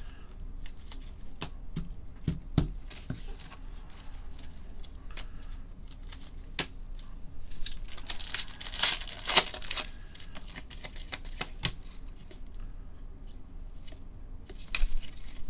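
Foil trading-card pack wrappers crinkling and tearing as packs are ripped open by hand, among light clicks and rustles of cards being handled; the loudest tearing comes about nine seconds in.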